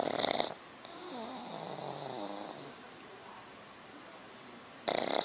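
Sleeping pug snoring: a loud snore at the start and another near the end, with a softer, wavering whistle in the breathing between them.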